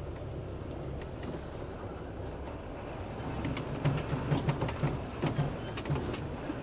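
Heavy goods truck running at low speed, its engine a steady low rumble. About halfway through, a run of repeated knocks and rattles joins it, roughly four a second.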